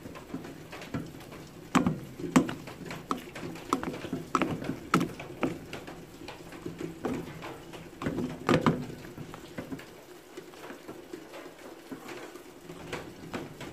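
A plastic spoon stirring and folding sticky rice with chicken in a stainless steel pot, making irregular soft knocks and clicks against the metal.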